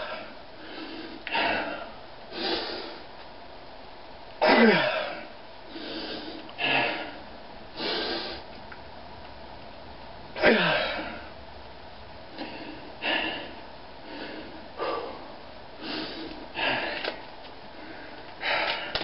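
A man's forceful breathing and grunts of strain while bending a steel nail by hand: sharp exhales every second or two, two louder groans sliding down in pitch about four and a half and ten and a half seconds in.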